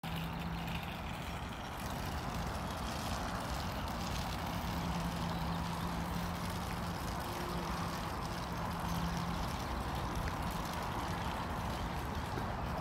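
Steady road traffic noise, with a low engine hum running through it that drops away about nine and a half seconds in.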